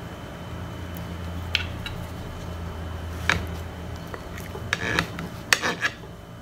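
A few short scrapes and clatters of a plate and utensils being handled, the last ones, about five seconds in, the loudest, over a steady low hum.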